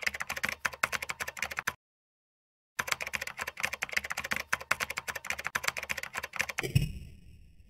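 Computer keyboard typing sound effect: rapid key clicks that break off for about a second after two seconds, then resume and stop near the end, where a dull low thump follows.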